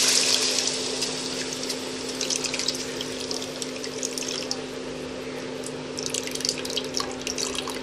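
Tamarind water poured into a hot pan of oil-fried masala: the sizzle eases into a steady softer hiss. Bursts of crackling and dripping come about two seconds in and again near the end, as the soaked tamarind pulp is squeezed out over the pan.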